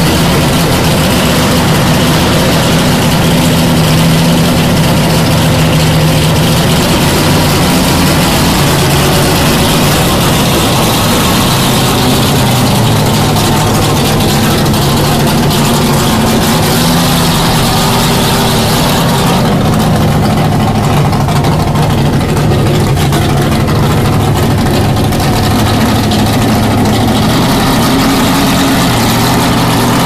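McLaren Can-Am race car's V8 engine running loud and steady at idle. Its sound changes about twenty seconds in.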